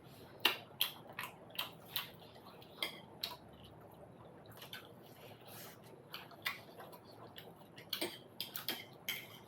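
Eating momos at close range: irregular short clicks and wet smacks of cutlery on a dish and of chewing.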